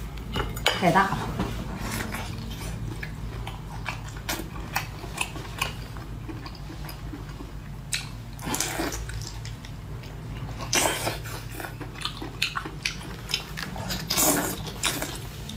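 Close-up mouth sounds of a person eating a scallop from its shell: wet sucking and slurping with chewing and lip smacks. There are many small clicks, and louder slurps come about a second in, around the middle and near the end.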